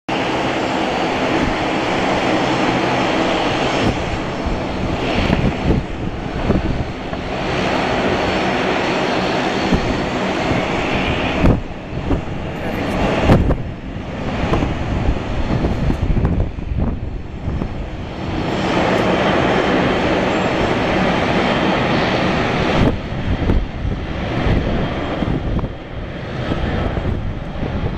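Boeing 737-400 airliner's CFM56 jet engines running as it taxis onto the runway: a steady jet rumble and hum that fades for a few seconds midway.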